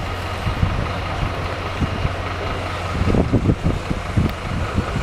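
Heavy recovery crane truck's engine running steadily, with irregular low rumbles about three seconds in.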